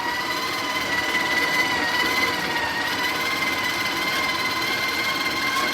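Breville Barista Express's built-in conical burr grinder running with a steady, even-pitched whine, grinding a double dose of espresso beans automatically after the portafilter was tapped into the cradle.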